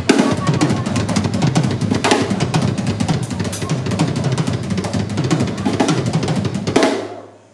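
Live band music led by a drum kit, played with rapid, busy snare and bass-drum strokes. It dies away about seven seconds in.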